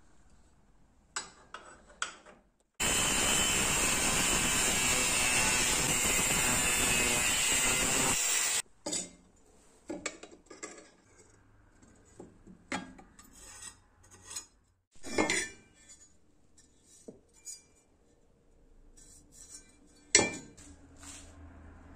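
A steady, loud hiss starts abruptly a few seconds in and cuts off about five seconds later. After it come scattered knocks, clicks and scrapes of a small steel shovel and tools being handled on a metal bench vise and workbench.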